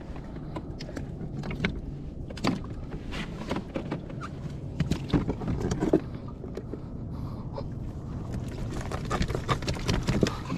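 Irregular knocks and taps on a plastic kayak hull and deck as a gaffed fish is brought aboard and thrashes in the cockpit, with the gaff pole clattering, over a steady low rumble of wind and water. The knocks come in quicker clusters about halfway through and again near the end.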